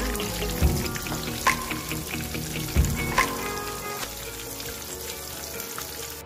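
Food frying in hot oil, a steady sizzle with four sharp clicks in the first half, under background guitar music.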